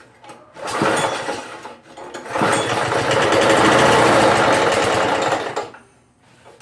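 Poulan Pro push mower's small engine pull-started on starting fluid: a short burst about a second in, then it fires and runs for about three seconds before dying out. It sounds like it's trying but won't keep running on its homemade fuel-vapor feed.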